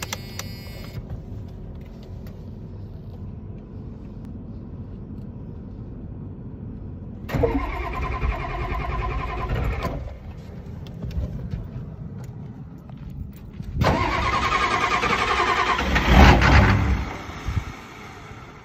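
An engine being cranked by its starter in two separate tries, each a few seconds long, with the second try the louder. Near the end of the second try comes a heavy low burst, typical of a hard-starting engine trying to catch.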